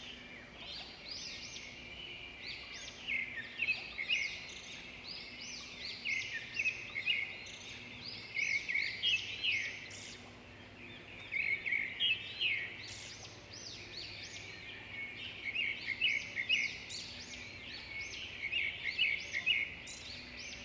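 A flock of small birds chirping all at once: many quick, overlapping high calls in busy clusters that come and go.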